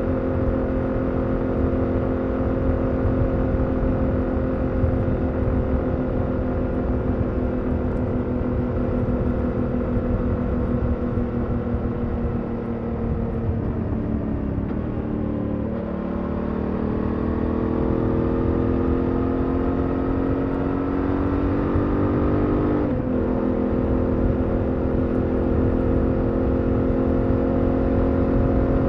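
BMW F 900 XR's parallel-twin engine through its stock exhaust, heard from the rider's seat at road speed over a steady wind rumble. About halfway through the engine note falls as the throttle is rolled off, then climbs under acceleration, drops suddenly at a gear change, and runs steady again.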